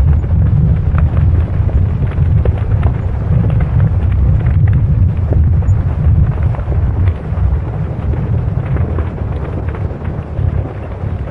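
Earthquake sound effect: a loud, continuous deep rumble of moving ground with scattered cracks and rattles through it, slowly easing off over the last few seconds.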